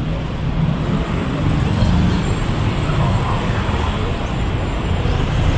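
Steady road traffic noise: vehicle engines running close by on a busy street, mostly a low rumble.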